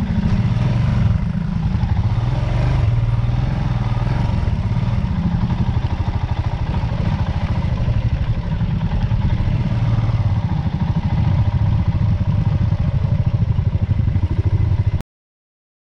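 Single-cylinder dual-sport motorcycle engine running under way, a fast low pulsing exhaust beat that holds fairly steady. It cuts off abruptly near the end.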